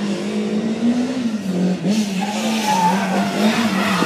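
Rally car engine running hard, its revs wavering up and down as it comes closer and grows louder, with tyre noise building from about two seconds in.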